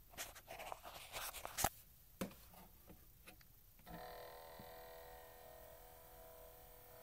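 Vinyl record player: a few clicks and scratchy handling noises, then about four seconds in a steady hum-like whine with several pitches starts abruptly and keeps going. This is the weird noise the player is making.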